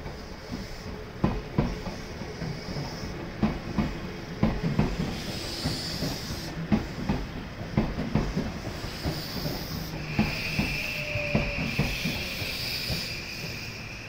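Odakyu 1000 series electric train passing, its wheels clacking repeatedly over the rail joints over a steady running rumble and hiss. A high steady tone joins about ten seconds in.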